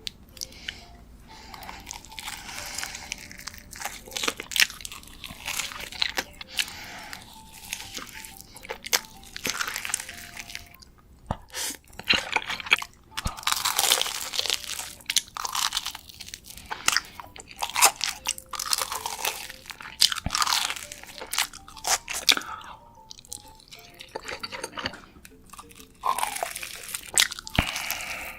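Close-miked eating: repeated crisp, crunchy bites and chewing of food in an irregular run.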